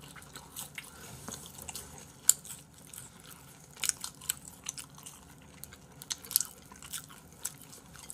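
Close-miked chewing and biting into Kyochon fried chicken: wet mouth sounds with scattered short, crisp crunches, the loudest about two seconds in.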